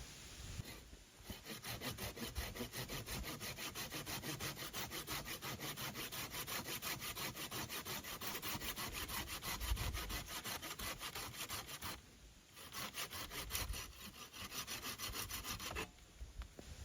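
Hand saw cutting through wood with quick, even back-and-forth strokes. There is a short pause about twelve seconds in, then a few more seconds of sawing.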